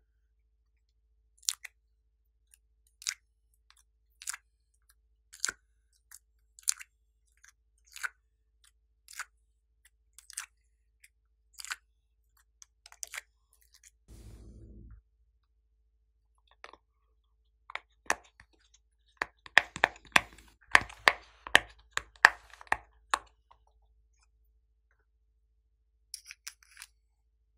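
Sharp plastic clicks, about one every second and a quarter, as moulded clay pieces are popped out of a plastic mould tray. About halfway there is a brief low rush, then a quicker, louder run of clicks and crackles, and a few light clicks near the end.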